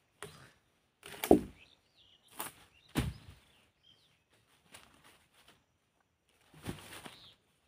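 Dull thuds and knocks of a heavy, freshly sawn log round being handled and tipped over on the ground, the loudest about a second in and another about two seconds later, with a few smaller knocks after. Faint bird chirps in the background.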